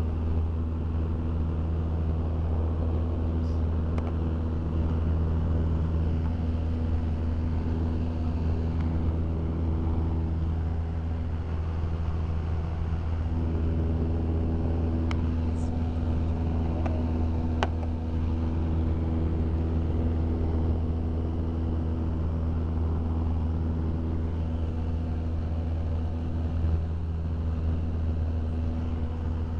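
Steady low drone of a small aircraft's engine heard from inside the cabin in flight, loud enough to drown out talk.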